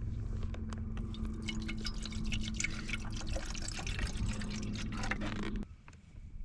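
Meat sizzling and popping on a hot pan or grill, a dense irregular crackle that stops abruptly near the end.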